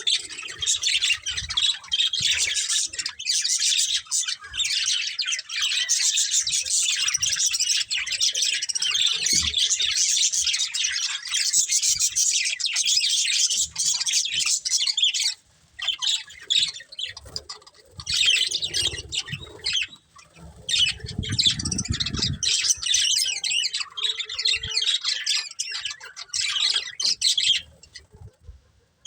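Budgerigars chirping and chattering rapidly and almost without a break. The chatter falls silent briefly twice just past the middle, and a short low rumble comes about two-thirds of the way through.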